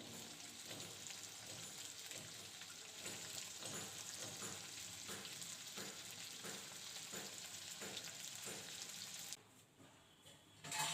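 Food sizzling in hot oil in a pan while being stirred with a spatula, with scraping strokes about twice a second. The sizzle stops suddenly about nine seconds in.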